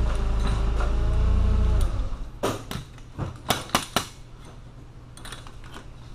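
A low mechanical drone with a steady tone stops about two seconds in. It is followed by several sharp knocks and clacks, over a faint steady hum.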